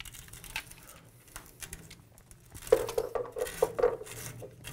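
Brass SharkBite push-to-connect ball valve being fitted onto a copper pipe by hand: light handling at first, then a quick run of metallic clicks and rattles for about a second and a half, starting a little past halfway.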